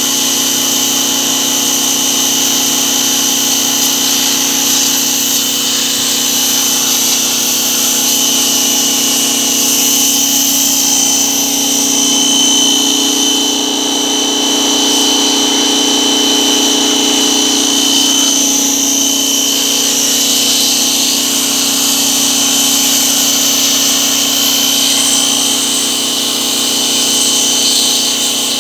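Electric pressure washer running steadily, its motor and pump giving a constant whine, while the high-pressure water jet hisses against a radiator core.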